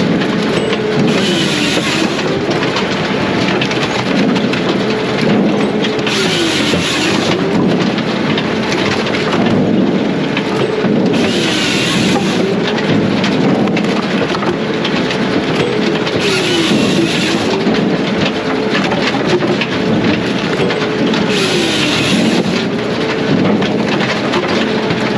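Brute Force USA 18-24HD diesel firewood processor running, its engine note dipping and recovering about every five seconds as it takes load, each dip carrying a hissing burst that lasts about a second.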